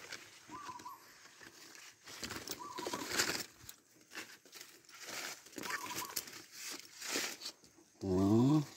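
Foliage rustling as someone moves through garden plants, with a short whistled bird call three times, about every two to three seconds. A man's short voiced sound comes near the end.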